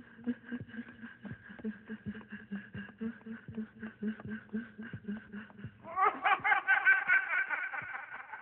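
A steady pulsing background of about four to five soft ticks a second over a low hum. About six seconds in, a loud burst of laughter cuts in for about two seconds.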